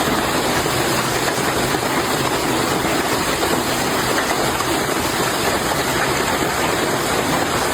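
Heavy hail pounding down, a dense, steady roar of countless impacts.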